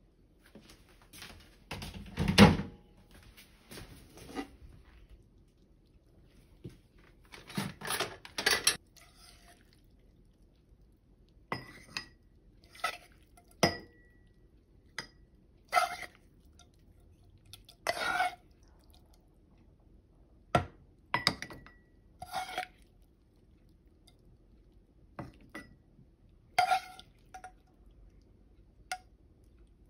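A serving spoon clinking and knocking against a metal pot and small ceramic cups as simmered food is spooned into them: a string of separate short clinks with a brief ring, every second or two, and a heavier knock about two seconds in.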